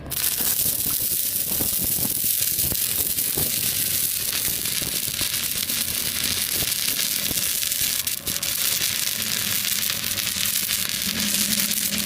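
Welding arc crackling and sizzling steadily, with a brief break about eight seconds in.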